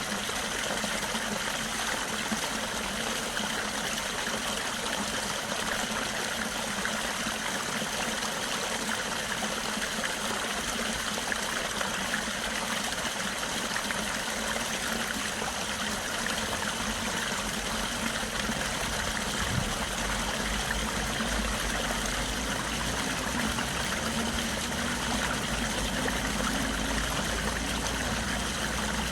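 Stream water running and trickling steadily. A low rumble builds in the second half.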